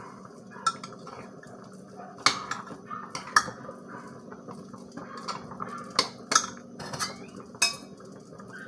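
A utensil clinking against a pot as soap is worked during rebatching: a handful of sharp, irregular clinks over a faint steady hum.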